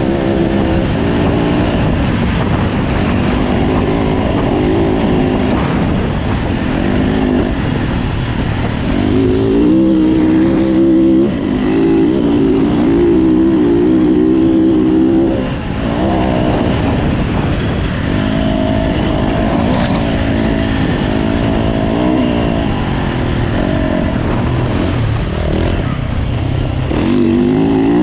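Yamaha dirt bike's engine running hard at speed, its pitch climbing and dropping again and again as the rider works the throttle and shifts gears, with a brief let-off about halfway through.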